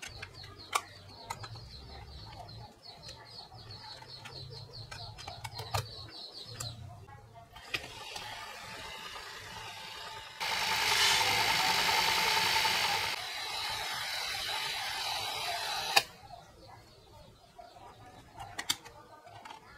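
Mini DV tape rewinder's motor whirring as it winds a cassette at high speed, louder for about three seconds in the middle, then stopping with a sharp click. Before it starts, plastic cassette cases click as they are handled.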